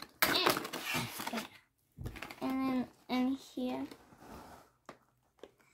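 Toy packaging rustling and crinkling as it is handled, for about a second and a half, then a few short hummed or spoken sounds from a voice.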